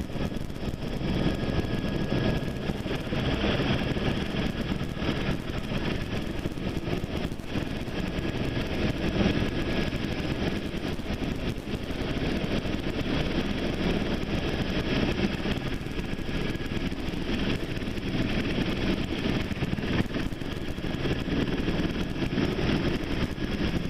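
Rescue helicopter running on the ground with its rotors turning just after touchdown: a steady engine and rotor din.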